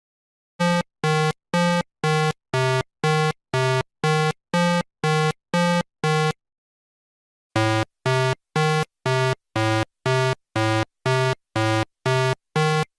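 A buzzy electronic beep repeated about twice a second, in two runs of about a dozen beeps with a short pause between them, like a telephone busy signal.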